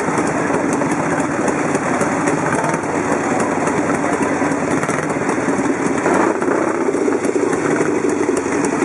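Vintage motorcycle engines idling steadily, with a fast, uneven ticking of exhaust beats.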